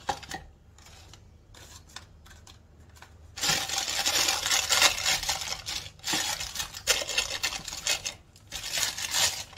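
Plastic piping bag crinkling and rustling as it is handled. The crinkling starts suddenly about three seconds in and goes on unevenly, after a few faint clicks.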